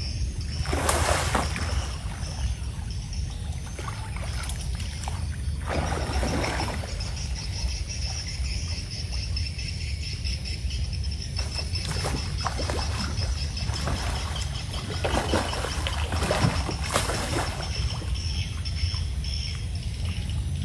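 Water splashing several times at irregular intervals as a hooked fish is fought on a bent pole in a pond, over a steady low rumble.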